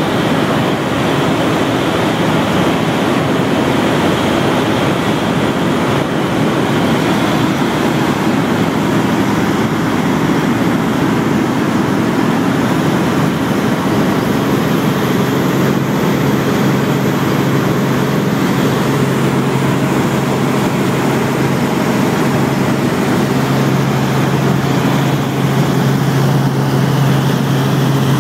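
Helicopter in flight heard from inside the cabin: a loud, steady rush of engine, rotor and airflow noise with a low hum underneath that grows stronger about halfway through.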